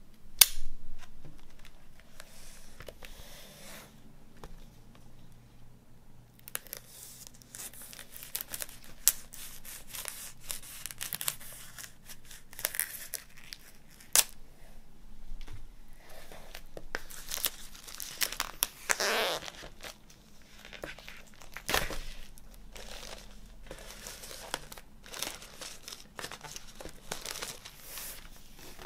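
Plastic shrink wrap on a vinyl LP sleeve being slit with a knife blade and pulled apart, with scratchy tearing and crinkling of the plastic that picks up after about six seconds. A single sharp click about half a second in.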